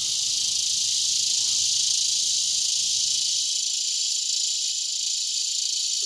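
Chorus of cicadas in the trees: a loud, steady, high-pitched buzzing drone.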